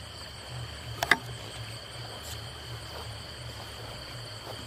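Steady high, two-toned chirring of night insects, over a low steady hum. A single sharp click about a second in.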